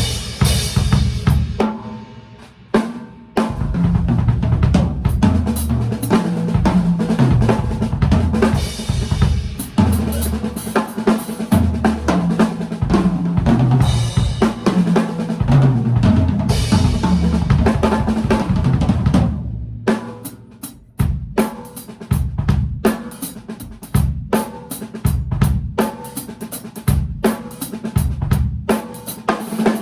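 Tama Superstar Maple drum kit played freely: bass drum, maple stave snare, toms and Meinl cymbals and hi-hat, with tom fills running down in pitch. The playing eases off briefly about two seconds in, and again about two-thirds of the way through, after which the hits come sparser. Recorded through an iPhone's microphone.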